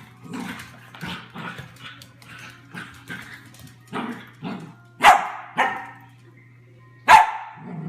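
A dog barking: a run of softer barks about twice a second, then two loud barks about five seconds in and another loud bark near the end.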